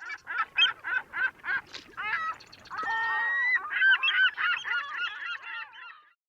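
A bird honking: a quick run of short goose-like calls, then longer calls, stopping shortly before the end.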